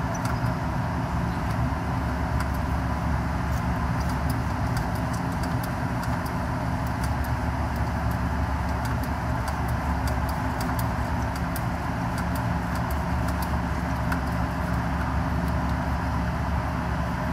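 An engine idling steadily, with scattered light clicks over it.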